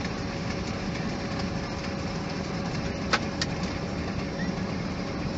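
Steady cockpit noise of a Boeing 737 on short final approach: the rush of airflow and engines with a constant low hum. Two short sharp clicks about three seconds in.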